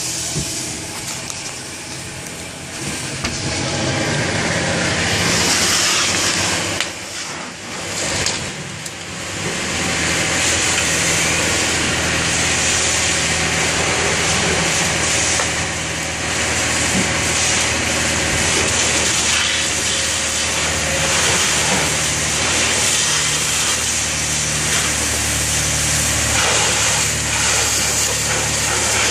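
Fire hose spraying water onto a burning car, a loud steady hiss of spray and steam that builds a few seconds in and briefly drops about a third of the way through. An engine runs steadily and low underneath.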